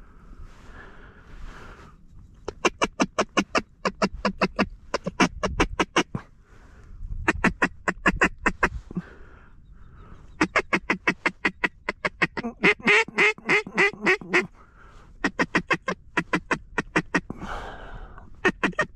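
Mallard duck call blown in repeated runs of about a dozen fast, evenly spaced, loud quacks, with short pauses between the runs.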